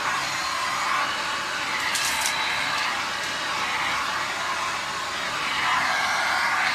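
Samsung vacuum cleaner running steadily, its tone drifting up and down a little, with a brief crackle about two seconds in.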